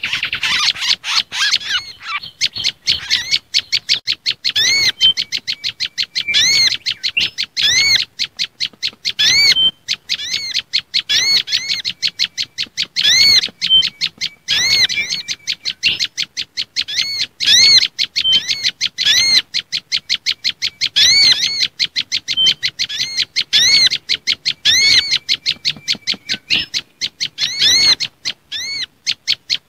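Bird-luring call track of small songbirds: a prenjak lumut tailorbird's agitated calls mixed with mangrove whistler and sunbird calls. It is a rapid string of sharp, repeated chirps in runs with short breaks between them.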